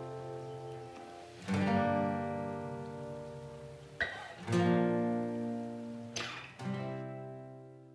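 Background music: slow acoustic guitar chords, three strums about two and a half seconds apart, each left to ring and die away, the music fading out near the end.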